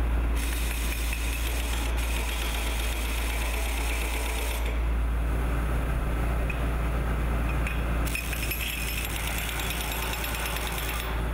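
Hose-fed power wrench running on the anchor-bolt nuts of a gantry column's base plate, in two bursts of several seconds each, over a steady low drone.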